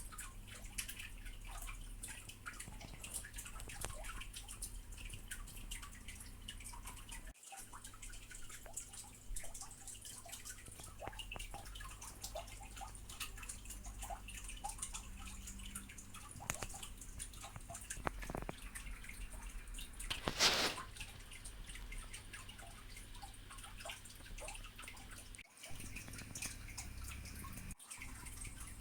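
Kensington SlimBlade trackball buttons clicking: many light, irregular clicks, with one brief louder rush of noise about twenty seconds in.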